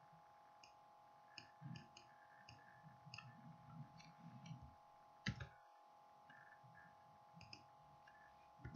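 Near silence with faint, scattered computer mouse and keyboard clicks, one somewhat louder about five seconds in, over a faint steady electrical hum.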